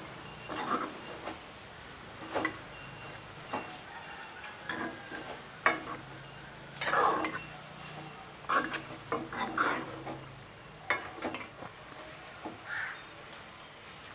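A metal spoon stirring pieces of rooster meat with spices in a metal pot, with irregular clinks and scrapes against the pot's side as the meat fries.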